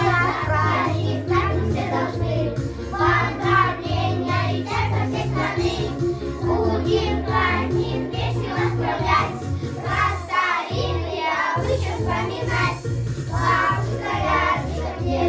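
Children singing a song over a backing track with a pulsing bass line; the bass drops out briefly about ten seconds in.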